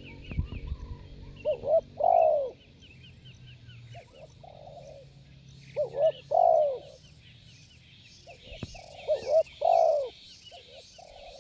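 Spotted dove cooing: three phrases about four seconds apart, each a couple of short notes followed by a long, loud, falling coo. A faint, high, rhythmic chirping runs underneath.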